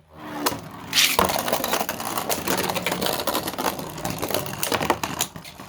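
Beyblade spinning tops launched into a plastic stadium with a sharp crack about a second in, then spinning and clashing with a dense, rapid plastic clatter of clicks and knocks.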